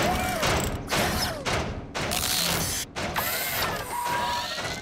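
Cartoon sound effects of a giant playground robot moving off: repeated mechanical clanks about twice a second, with rising-and-falling servo whines.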